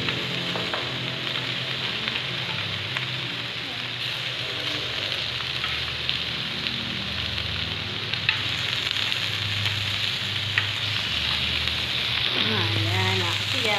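Pork belly sizzling steadily in a hot tabletop grill pan, with a few sharp clicks of metal tongs against the pan as the slices are turned.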